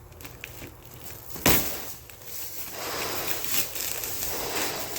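A single sharp knock about a second and a half in, followed by a stretch of rustling, crackling noise.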